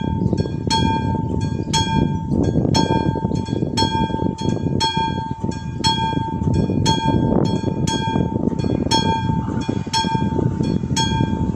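Classic electric bell of an AŽD 71 level-crossing warning signal ringing steadily at about three strokes a second, warning that a train is approaching. A low rumble runs underneath.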